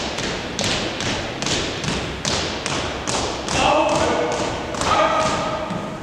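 Color guard marching in step on a hard floor: even heel strikes of hard-soled shoes, about two and a half a second. A drawn-out shouted drill command comes twice, about halfway through and near the end.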